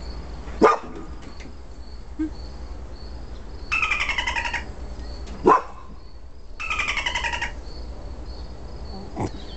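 Animal sound clips played from a cell phone's speaker: a thin, roughly one-second call with falling pitch, heard twice about three seconds apart. There are also two single sharp barks, about a second in and halfway through.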